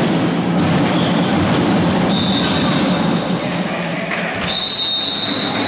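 Basketball being played in a gym: the ball bouncing on the wooden court over a murmur of players and spectators, with two long high-pitched squeaks, one about two seconds in and one near the end.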